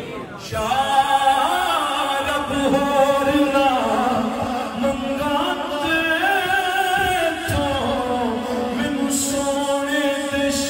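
A man singing a naat, a devotional poem, solo into a microphone, holding long notes that bend up and down in pitch.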